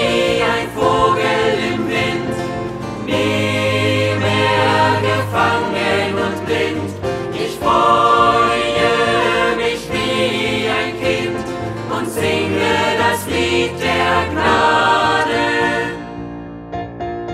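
Music: a choir singing a Christian song with instrumental accompaniment. Near the end the voices stop and a softer keyboard carries on alone.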